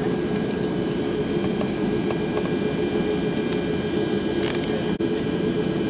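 Steady drone of an Airbus A340-600 airliner's four Rolls-Royce Trent 500 jet engines and rushing air, with a constant low hum running through it.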